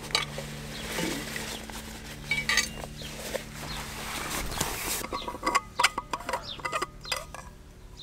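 Rummaging in a fabric backpack, with rustling for the first few seconds. Then a steel vacuum flask is taken out and handled, with a quick run of clicks and clinks in the second half.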